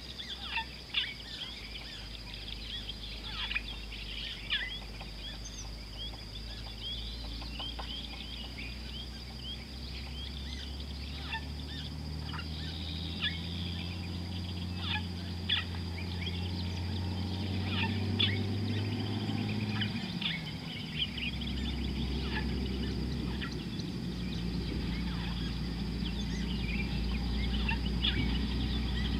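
Wild birds chirping and calling in many short notes, over a steady high whine. A low droning hum slowly grows louder and dips in pitch about twenty seconds in.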